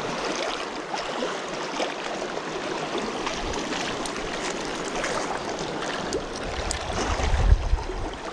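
Sea swell washing and lapping over shoreline rocks, a steady splashing hiss, with a brief low rumble near the end.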